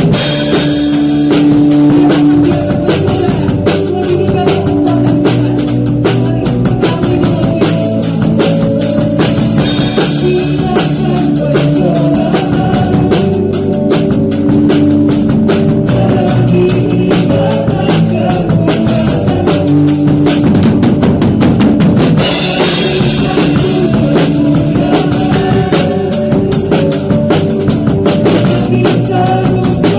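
Acoustic drum kit played in a worship band, with steady dense strokes of bass drum and snare over sustained keyboard, guitar and bass notes. Cymbal crashes ring out at the start and again about two-thirds of the way through.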